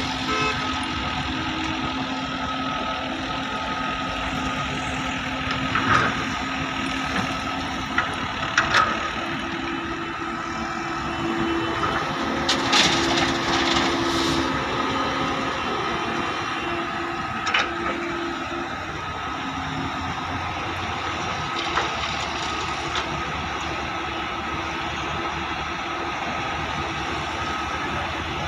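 Heavy diesel machinery, an excavator working beside a dump truck, running steadily with a few sharp clanks and knocks and a longer rattling burst near the middle.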